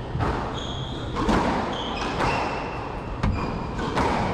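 Squash rally: the ball is struck and knocks off the court walls about once a second, amid short, high squeaks of shoes on the court floor.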